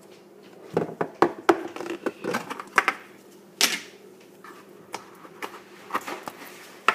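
Blue clear-glue and Tide slime being poked and squeezed by fingers in a plastic container, giving irregular sticky clicks and pops, with one louder snap about halfway through.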